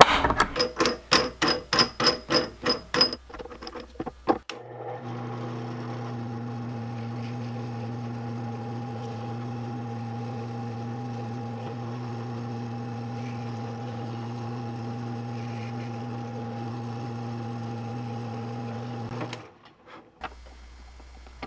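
A quick series of short strokes, about four a second, as screw centres are marked on a clear plastic side plate. Then a benchtop drill press motor runs with a steady hum for about fifteen seconds while drilling screw holes through the plate, and stops near the end.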